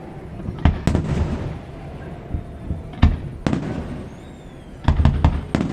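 Fireworks display, aerial shells bursting with echoing booms. Two bangs come about a second in, two more around three seconds, and a quick run of four near the end, with a faint gliding whistle just after four seconds.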